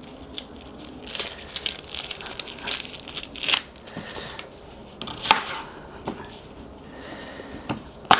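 Dry onion skin crackling and tearing as it is peeled off by gloved hands, in irregular bursts. Near the end a knife clicks against a plastic cutting board as cutting begins.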